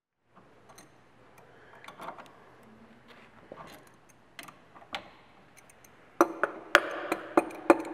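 Faint clinks of a wrench on metal parts, then about six seconds in the 1920 paper bag machine is running: a steady hum under a loud, regular clack about three times a second.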